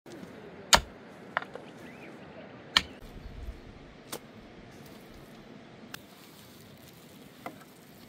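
A pickaxe striking dry ground twice, about two seconds apart, followed by a few fainter knocks.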